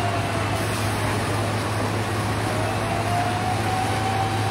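Steady low hum of fire engines running, under an even wash of noise. A faint thin whine slowly dips in pitch and rises again.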